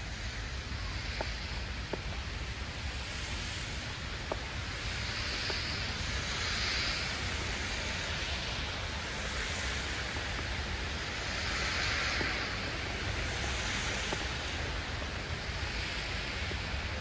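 Steady outdoor rushing noise that swells and fades every few seconds, over a constant low rumble, with a few faint ticks.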